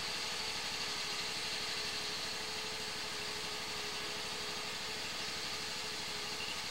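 Sewer hydro-jetter's engine and high-pressure pump running steadily while jetting roots out of a sewer main: an even mechanical hum with a steady tone and a hiss, no change in pace.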